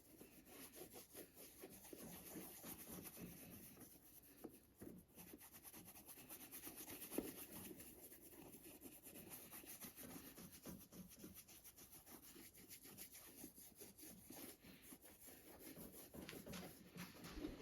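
Faint, continuous rubbing and scratching from hand work on a leather boot, with scattered light taps, one a little sharper about seven seconds in.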